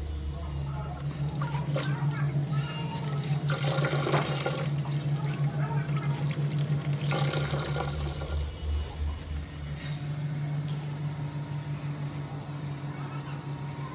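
Water from a tap running and splashing over a Damascus steel sword blade being rinsed, for most of the first ten seconds, then stopping. A steady low hum sits underneath.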